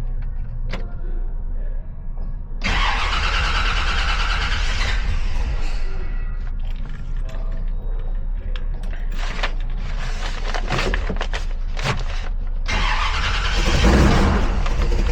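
1957 Chevrolet Bel Air's engine running steadily at idle, with two louder spells of noise, about three seconds in and again near the end.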